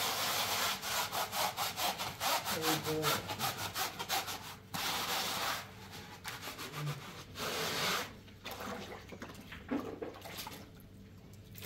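Scouring pad scrubbing a plastic bowl, quick back-and-forth strokes in several bursts, the longest over the first half and then shorter ones until they die down about eight seconds in.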